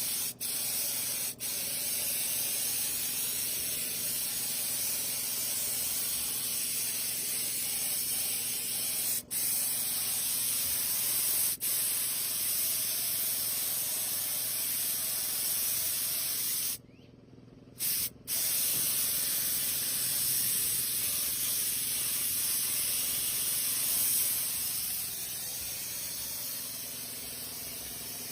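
Air paint spray gun hissing steadily as paint is sprayed. It cuts off briefly a few times and for about a second a little past halfway, with a faint steady low hum underneath.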